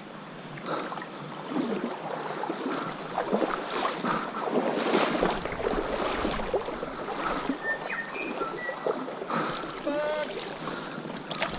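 Legs wading through a shallow river, with water sloshing and splashing irregularly at each step.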